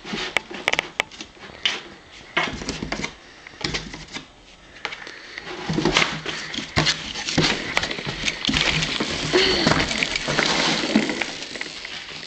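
Corrugated cardboard box scraping, rustling and tapping as a cat claws and scrambles about inside it, in irregular bursts that die down for a moment about four seconds in and then grow busier.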